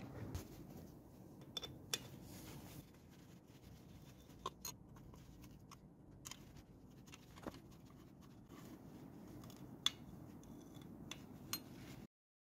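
Scattered light metallic clicks and clinks of hand tools, a combination wrench and then a thin driver, against bolts on a motorcycle engine, over faint background noise. It cuts off to silence just before the end.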